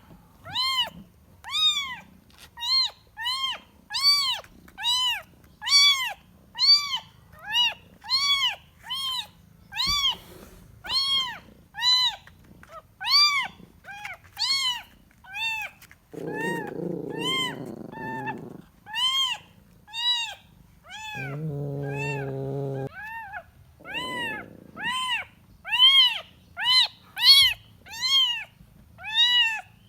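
A kitten meowing over and over for its mother, short high calls that rise and fall, about one a second. Twice in the middle a lower, rougher sound runs for about two seconds under the calls.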